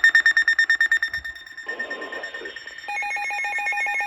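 Electronic emergency-alert tones from alert devices. A rapidly pulsing high beep fades after about a second, and about three seconds in a second, lower pulsing tone with a stepping high tone joins it.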